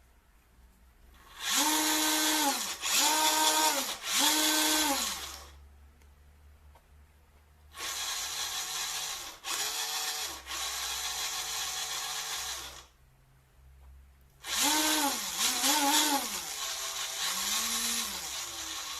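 Electric drive motor and gearbox of an Eachine EAT01 1/16-scale 6WD RC truck whining under throttle, the pitch rising and falling with each blip. There are three quick bursts, then a longer steady run, then more bursts near the end.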